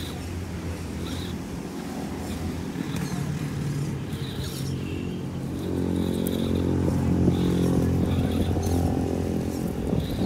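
Electric drive of a Vaterra Twin Hammers RC rock crawler running as it struggles over loose rocks: a steady low motor hum that grows louder about six seconds in, with short high whines that come and go.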